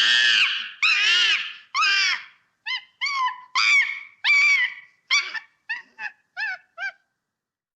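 Monkey screeching in a series of high-pitched calls, each rising and falling in pitch: about a dozen, long and loud at first, then shorter, quicker and fainter, dying out about seven seconds in.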